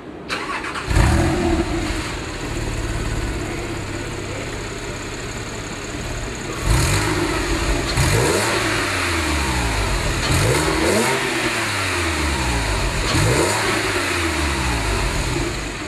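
Porsche 997.2 Carrera 4 GTS flat-six on its stock exhaust, heard at the tailpipes: a loud flare about a second in settles into a steady idle, then from about six seconds in several throttle blips rise and fall in pitch between stretches of idle.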